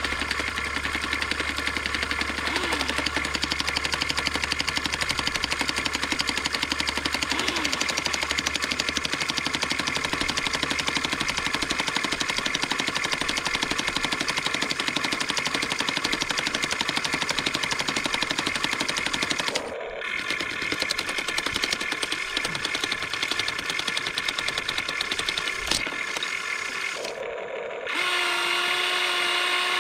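Huina 1593 RC excavator's breaker hammer attachment chattering rapidly and steadily against rock, with the model's motors whining. The chatter breaks off abruptly twice in the last third.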